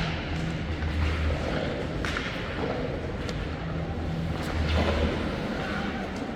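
Ice hockey game sounds in a rink: a steady rush of noise with a low hum, broken by a few sharp knocks of sticks and puck.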